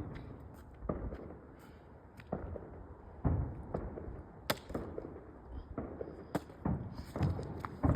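A series of irregular thuds and knocks, about seven in all, with one sharp crack about four and a half seconds in.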